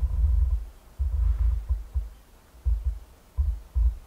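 Wind buffeting the microphone: irregular low thumps and rumble that come and go in gusts, with a few faint light ticks in the background.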